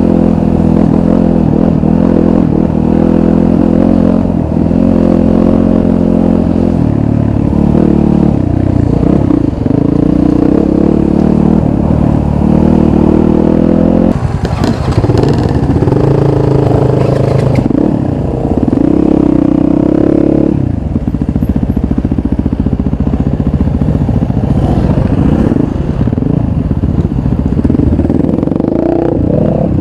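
Dirt bike engine being ridden on a rough trail, its pitch rising and falling with throttle and gear changes. There is a rougher clattering stretch about halfway through, and the engine settles lower about two-thirds of the way in.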